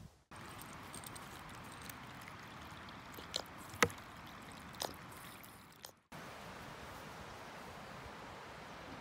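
Faint steady outdoor background hiss, with three short sharp clicks a little before the middle and two brief dropouts where the sound cuts.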